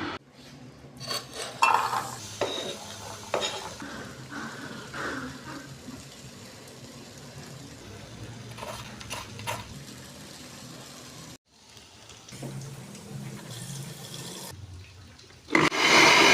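Kitchen utensils clinking and scraping against pots and dishes, as in stirring and serving food. A short, loud rush of noise comes near the end.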